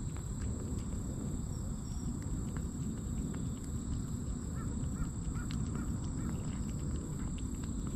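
A cat eating wet food from a stainless-steel tray close up: chewing and licking with many small wet clicks over a steady low rumble. About halfway in, a bird calls a quick run of five short notes.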